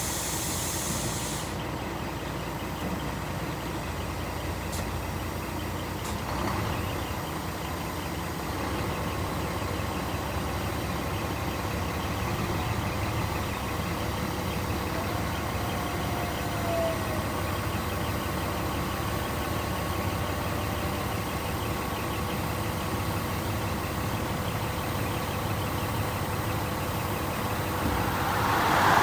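Scania P380 tipper truck's five-cylinder diesel running steadily at idle while driving the hydraulic pump to raise the tipper body, with faint steady tones over the engine. A short loud rush of hiss comes near the end.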